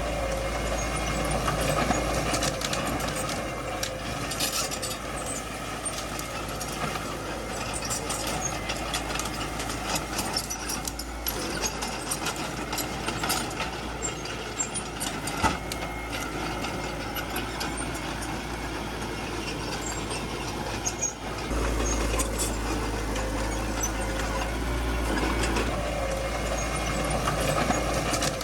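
Small crawler bulldozer's diesel engine running steadily under work, with scattered cracks and knocks, the sharpest a little past halfway. The low engine note grows louder about three quarters of the way through.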